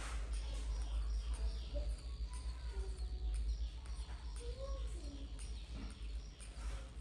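Baby macaque suckling milk from a bottle, with small sucking clicks and several soft, short squeaks and coos that slide up and down in pitch, over a steady low hum.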